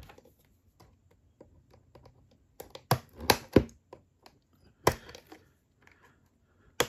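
Trading cards and packaging being handled on a table: a few sharp clicks and taps, clustered about three seconds in, another a second or so later and one near the end, over faint rustling.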